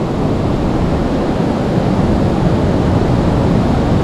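Steady rushing of river water flowing past.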